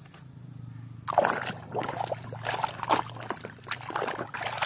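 Muddy water sloshing and splashing in a plastic tub as a muddy toy is swished and scrubbed by hand, starting about a second in. A faint steady low hum runs underneath.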